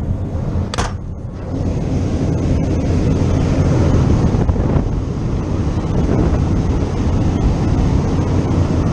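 Large old gas-fired warehouse heating unit running: a steady roar of burner and blower air over a low hum. A short sharp sound comes about a second in, and the roar grows louder a second and a half in and holds there.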